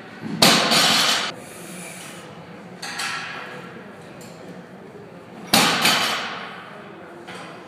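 A 365-pound deadlift barbell loaded with bumper plates coming down on the lifting platform twice, about five seconds apart, each a heavy thud with the plates clattering on for under a second. Lighter knocks come in between as the bar is pulled again.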